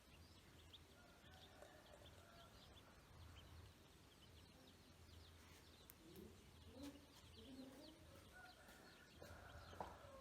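Faint, rapid peeping of ducklings, many short high peeps, with a few lower calls joining in the second half.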